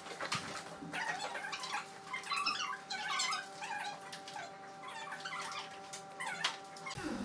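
Cat meowing repeatedly, short calls over a steady hum of tones.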